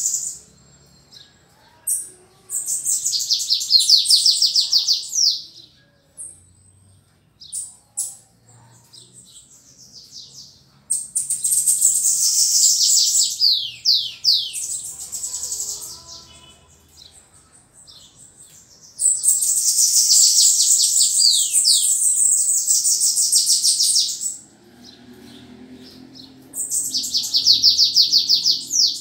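Bananaquit singing in four bouts of high-pitched song, each a few seconds long, made of rapid trilled notes and quick falling slurs, with short chirps in the gaps.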